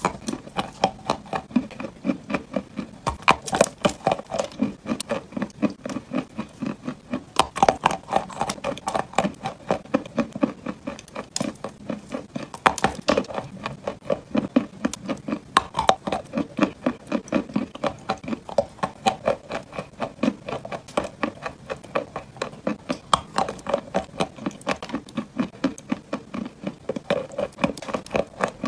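Chunks of dry clay bitten and chewed, a steady run of crisp crunches, about three a second.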